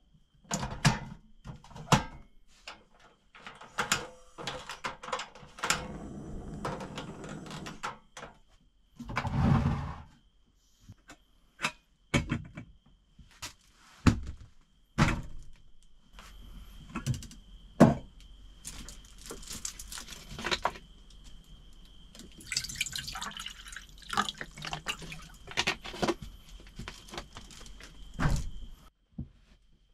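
A string of clicks and knocks as a butane canister is seated in a portable cassette gas stove and a saucepan and plastic water bottle are handled, with water poured into the saucepan about two-thirds of the way through.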